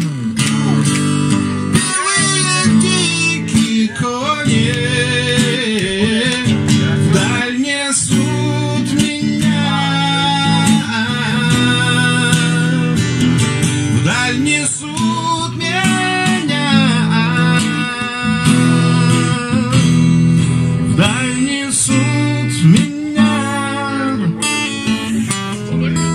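Music with strummed acoustic guitar and a melodic line over it, steady and full throughout.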